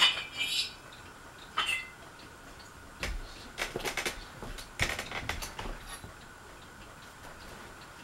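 Fasco Vanity Fair ceiling fan, which has a broken flywheel and a loose motor housing, running on low with irregular metallic clinks and clicks over a faint steady hum. The clicks come in clusters during the first six seconds, then only the hum remains.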